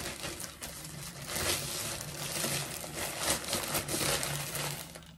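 Parcel packaging being crinkled and torn open by hand, an irregular run of rustling and crackling as the trainers are unwrapped.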